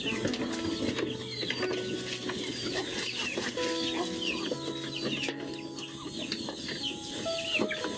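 Chicks peeping: a continual run of short, high, falling cheeps, several a second, with a hen clucking now and then.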